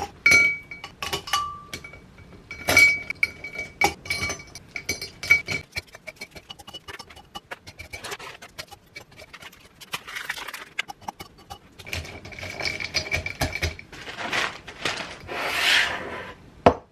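Dishes and cutlery clinking and knocking in quick succession, some strikes leaving a short ringing tone. In the second half come longer rubbing, scraping noises.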